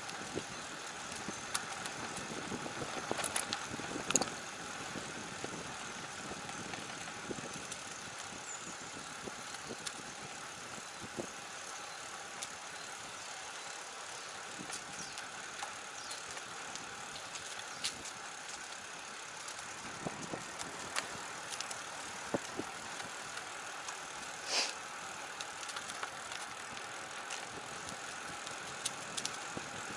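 Road bike being ridden on a paved forest road: steady rolling noise with scattered small clicks and rattles from the bike. A brief sharper sound stands out about 25 seconds in.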